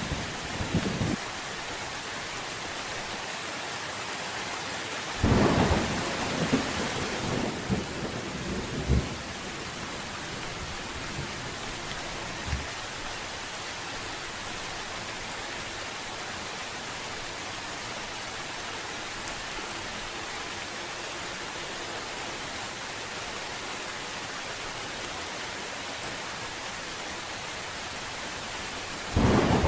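Steady rain with thunder. A rumble dies away in the first second, a loud thunderclap breaks about five seconds in and rumbles on for several seconds, and another clap starts just before the end.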